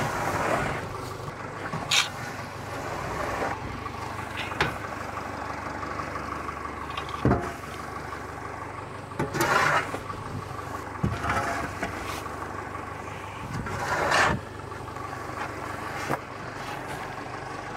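A tractor engine idles steadily in the background while a pitchfork scrapes up matted hay and manure and tosses it onto a wagon, in short scrapes and rustles every couple of seconds.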